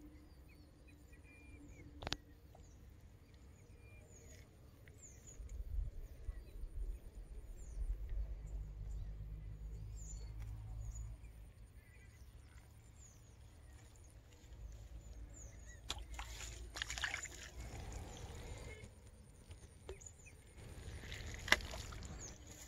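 Faint lakeside outdoor ambience: a low wind rumble on the microphone and short, high bird chirps. Near the end there is rustling and one sharp click as the float rod is lifted and recast.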